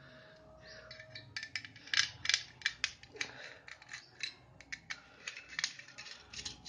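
A small screwdriver working the screws out of the back of a metal LED downlight housing. It makes irregular sharp clicks and scrapes of metal on metal.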